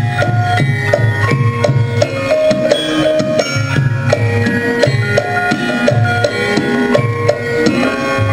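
Javanese gamelan music: metallophones ring a steady run of struck, held notes over regular hand-drum strokes.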